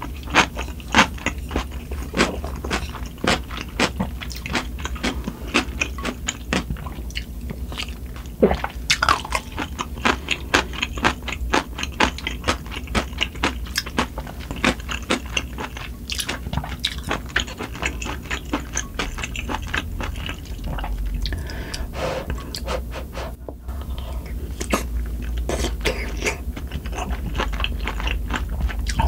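Close-miked chewing and biting of spicy sundae gukbap (Korean blood-sausage and pork soup), with many sharp mouth clicks several times a second. Underneath runs a steady low hum from wind and rain.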